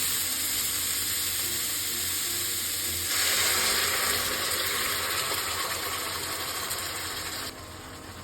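Food sizzling in oil in a frying pan, a steady hiss that grows louder about three seconds in and cuts off abruptly near the end.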